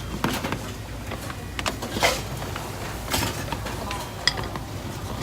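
Cleaning and handling noises: short scrubbing or wiping swishes, three of them stronger, about a third of a second, two seconds and three seconds in, mixed with scattered clicks and knocks.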